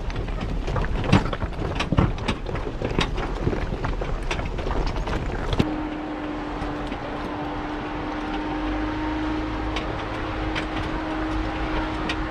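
Jeep Wrangler JKU Rubicon driving along a rough dirt four-wheel-drive track: steady engine and tyre rumble with frequent sharp knocks and rattles. About halfway through, a steady hum comes in and the knocks thin out.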